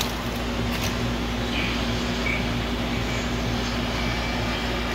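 Steady whirring of a kitchen appliance fan with a constant low hum underneath, with a faint click about a second in.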